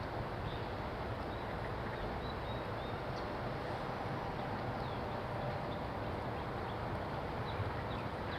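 Steady low rumble of distant city traffic, with many short, high bird chirps scattered throughout.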